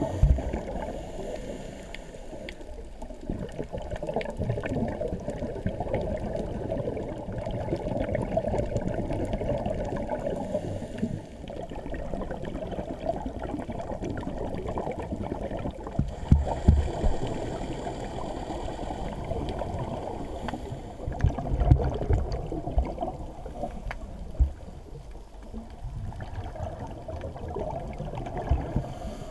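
Underwater sound on a shallow scuba dive, muffled through a camera's waterproof housing: a steady rushing water noise with the gurgle of a diver's exhaled regulator bubbles, and a few low bumps about halfway through and again a few seconds later.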